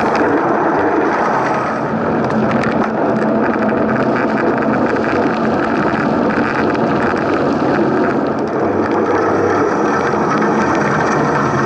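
Mountain bike riding noise picked up by an on-board camera: a steady rumble of tyres and wind on the microphone, with many small rattles and clicks.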